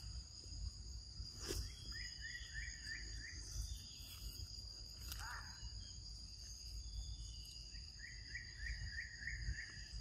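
Steady high-pitched insect drone, with two runs of rapid chirps, one about two seconds in and one near the end, and a short falling call halfway through.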